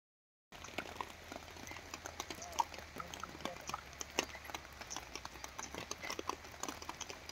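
Rain falling, with many irregular sharp taps of raindrops striking close by over a faint steady hiss; it starts about half a second in.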